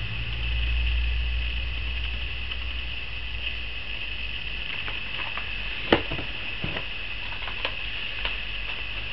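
A few separate clicks and taps from plastic and cardboard lure packaging being handled, the loudest about six seconds in, over a steady high hiss of room noise.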